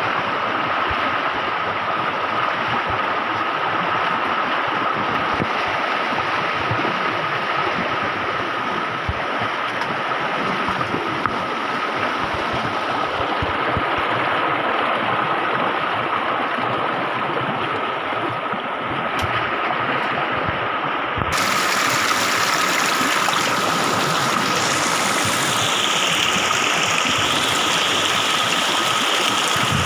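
Shallow stream rushing and splashing over rocks, a steady wash of water noise. About two-thirds of the way through it turns brighter and hissier.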